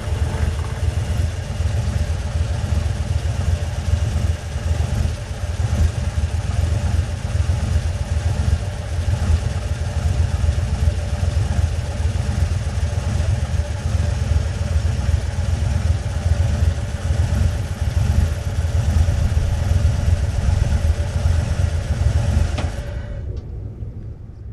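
Old truck engine running steadily, a deep, unevenly pulsing low sound. It fades away near the end.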